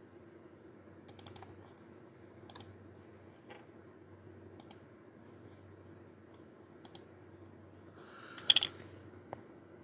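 Faint light clicks and taps, a quick cluster about a second in, then single ones every second or two, like tapping or typing, over a low steady room hum. A brief louder sound comes about 8.5 s in.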